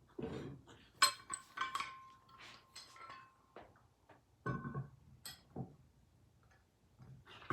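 Metal vise parts clinking and knocking as they are handled and fitted together during assembly. A sharp metal strike about a second in rings on for about two seconds, followed by several lighter knocks.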